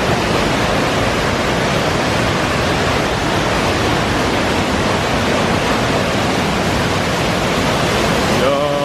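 Waterfall rushing: a loud, steady roar of falling water. A held tone with several pitches comes in near the end.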